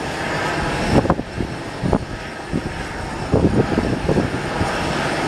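Jet airliner engines running steadily on the airport apron, with gusts of wind buffeting the microphone in the second half.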